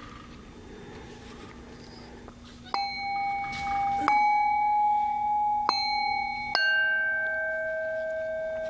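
Metal singing bowls struck with a wooden striker, starting about three seconds in. Three strikes on bowls with much the same ringing tone come roughly a second and a half apart, then a fourth strike on a lower-pitched bowl rings on steadily. A faint steady low hum lies under the first part.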